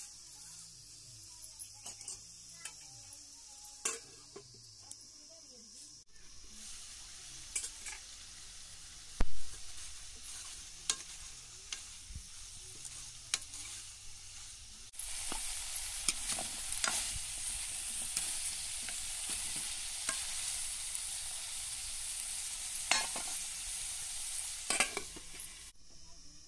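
Food sizzling as it fries in a pan, with a utensil stirring it and clicking against the pan. The sizzle gets louder about halfway through, and there is one sharp knock about a third of the way in.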